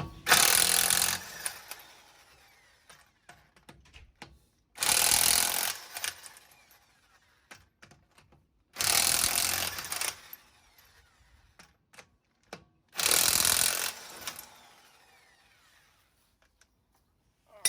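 Power impact wrench with a 21 mm socket hammering the wheel's lug nuts loose: four loud bursts of about a second each, some four seconds apart, with light clicks between them.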